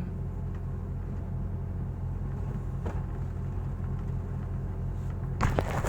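Hitachi excavator's diesel engine running steadily with a low, pulsing drone, and a short burst of clattering near the end.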